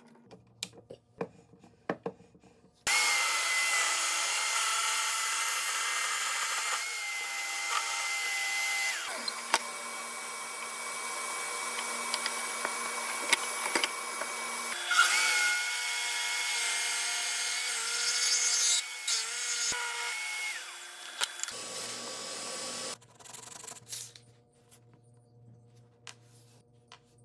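Power drill spinning a bead-cutting bit into wood: a steady high motor whine with rough cutting noise. It starts about three seconds in, shifts in pitch partway through, and stops a few seconds before the end, with light clicks and knocks of handling before and after.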